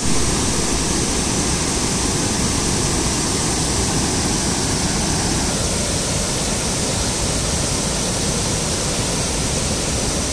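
Waterfall: a broad curtain of water pouring over rock ledges into a river pool, making a loud, steady rush of water that starts abruptly and holds even throughout.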